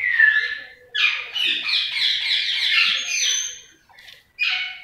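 Small cage birds chirping and chattering in quick runs of high calls, with a short high whistle about three seconds in.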